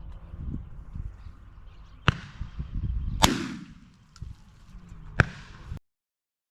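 Three shotgun shots fired at birds, spaced about one and two seconds apart, each followed by a short echo. The sound cuts off abruptly soon after the last shot.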